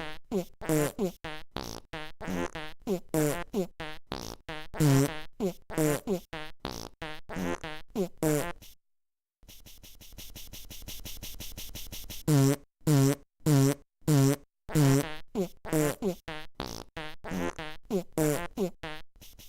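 A rapid string of fart sounds, short pitched blasts at about three or four a second, many bending down in pitch. It stops dead for about half a second near the middle, then resumes with four loud, evenly spaced blasts followed by more quick ones.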